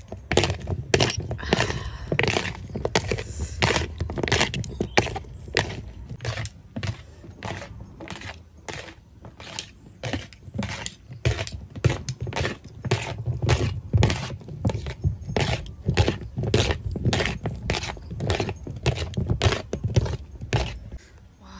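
Two metal spoons tossing sliced fruit in a plastic bowl, clacking against the bowl and each other about twice a second.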